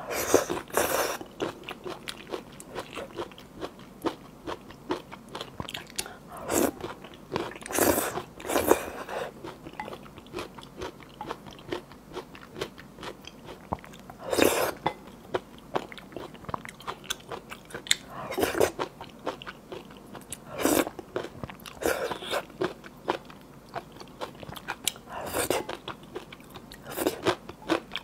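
Close-miked eating: a person slurping noodles coated in thick, sticky malatang broth, in short loud slurps every few seconds, with quieter wet chewing clicks between.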